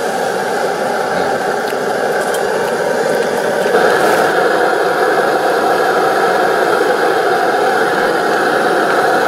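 Pressurised liquid-fuel camp stove, an MSR Dragonfly, burning at full flame with a steady, loud rushing hiss that grows louder about four seconds in.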